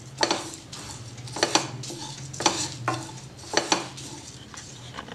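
A wooden spatula stirs and scrapes dry whole spice seeds (fennel, cumin, mustard seed, ajwain) around a nonstick frying pan as they dry-roast. It makes a rustling scrape about once a second over a low steady hum.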